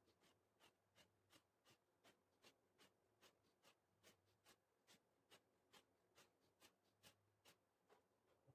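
Near silence, with faint short ticks at an even pace of about two and a half a second. They match the rhythm of repeated Hindu squats in a recording sped up four times.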